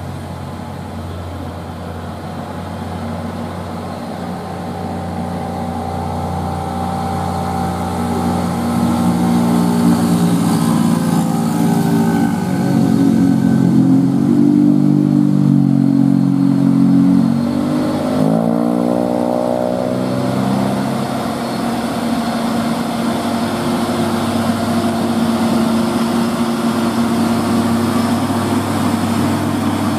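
Diesel engine of a Hino truck pulling up a steep grade under load, growing louder as it comes closer. About eighteen seconds in its revs rise quickly, then it settles into a steadier run.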